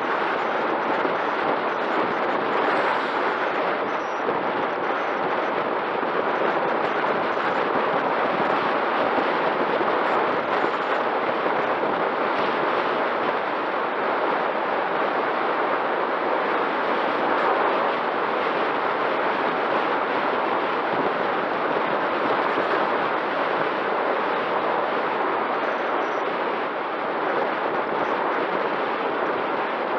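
Steady rush of wind buffeting a bicycle-mounted camera on a fast road descent, with a faint steady whine underneath.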